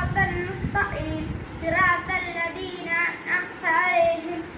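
A young boy singing a devotional song solo, his notes bending up and down in short phrases.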